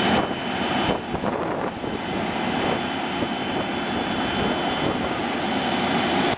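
Cummins diesel engine of a Peterbilt 367 crane truck running steadily, with a thin, steady high whine above the engine noise.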